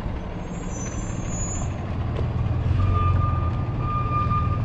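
A vehicle backup alarm beeping at one pitch, a series of long beeps with short gaps that starts a little past halfway, over a steady low rumble.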